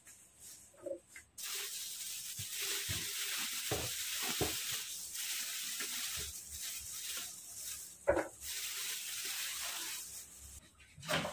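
Thin plastic produce bag crinkling and rustling as it is handled, a steady hiss-like rustle for most of the time, with a few light knocks and one sharper knock near the end.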